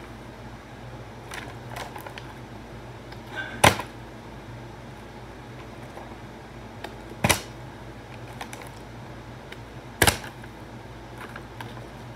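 A partly filled plastic water bottle being flipped and hitting the floor three times, a few seconds apart, each a short sharp thud. A faint steady low hum runs underneath.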